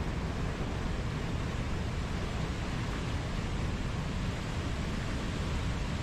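Fast whitewater river rushing steadily: an even, unbroken noise with most of its weight low down.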